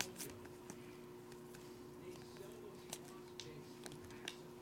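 Chromium Bowman Draft Sapphire baseball cards being slid off a stack one at a time, their stiff edges making irregular light clicks, the sharpest at the start and a cluster in the second half. A low steady electrical hum runs underneath.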